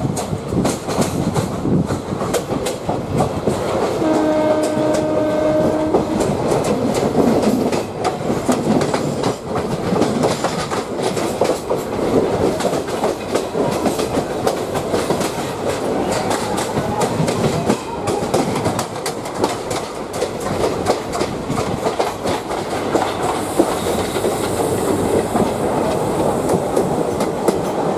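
Passenger train running on the rails with a steady rumble and a fast run of wheel clicks over rail joints and points. A locomotive horn sounds once for about two seconds, about four seconds in.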